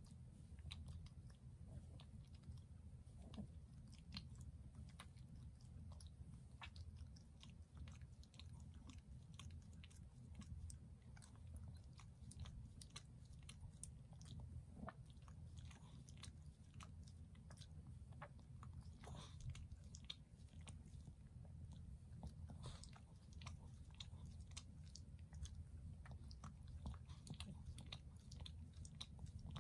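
Faint, irregular wet mouth clicks and smacks from a drowsy Shih Tzu lying on its back, over a low steady hum.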